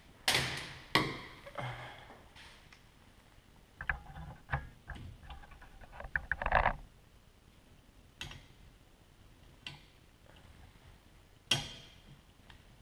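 Hard plastic clicks and rattles as a Bosch Aerotwin flat wiper blade's adapter clip is worked and snapped onto a wiper arm's hook. There are two sharp snaps right at the start, a flurry of rattling clicks around the middle, and a few single clicks later.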